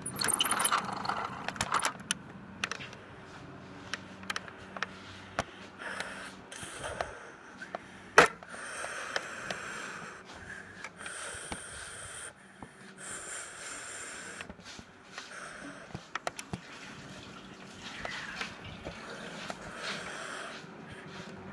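Handling noise of a camera being moved inside a Lego model: scattered clicks and scrapes, soft rustling, and one sharp loud knock about eight seconds in.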